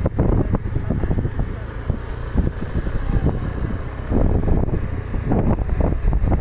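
Wind noise on the microphone while cycling: a steady low rumble with irregular gusts.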